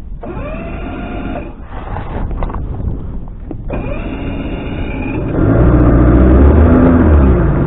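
Boat outboard motor running. About two-thirds of the way in it is throttled up, its pitch climbing and then dropping back as the revs come down.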